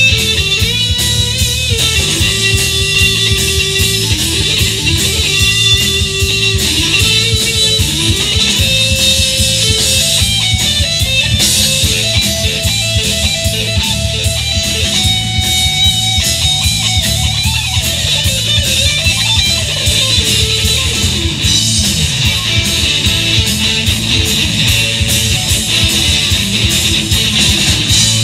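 Live blues-rock band playing an instrumental passage: a lead electric guitar plays a melodic line of held and bent notes over electric bass and drums.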